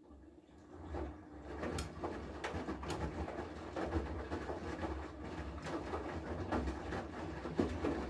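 Haier front-loading washing machine in its wash phase: the drum turns and wet clothes slosh and drop through the water, over a steady low motor hum. After a brief pause right at the start, the drum starts turning again within the first second.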